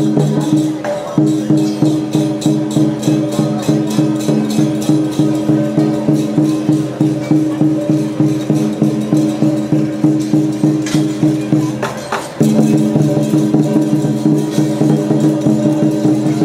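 Lion dance percussion band playing: a drum, gongs and cymbals strike a steady beat of about two to three strokes a second over a steady held tone. It breaks off briefly about twelve seconds in, then starts again.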